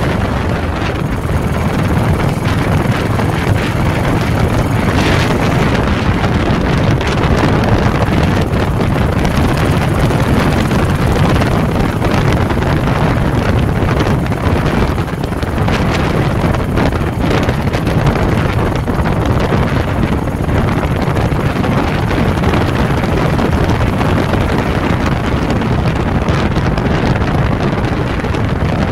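Motorcycle engine running steadily at road speed, mixed with wind buffeting the microphone.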